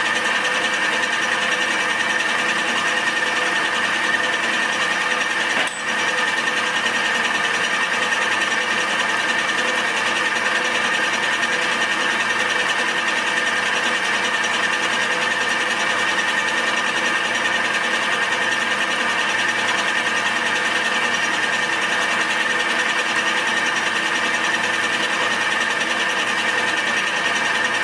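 Milling machine spinning a homemade fly cutter at a slowed speed, taking a light facing cut on aluminium: a steady whine with a high ringing tone, its even note the sign that the cutter is cutting. A brief click about six seconds in.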